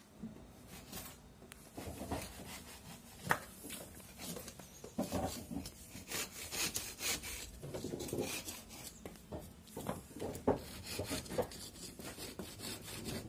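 A knife blade shaving a small block of wood by hand, a run of uneven scraping strokes.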